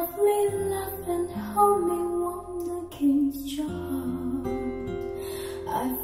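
Pop music with guitar and a soft melody, played back through a JBL Studio 530 bookshelf speaker.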